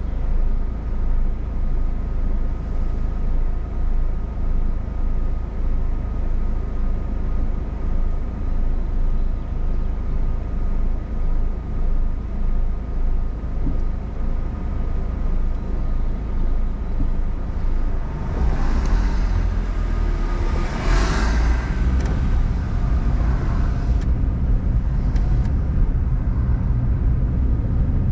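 Car engine and cabin rumble heard from inside the car, first waiting in traffic, then pulling away about two-thirds of the way through, when the rumble grows louder and a brief swell of noise rises and passes.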